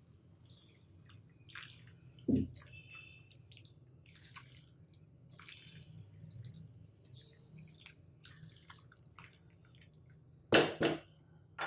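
Silicone spatula stirring shell pasta with chicken and vegetables in a non-stick pan: soft, scattered scrapes and wet clicks. A low thump comes a little over two seconds in, and two louder knocks come near the end.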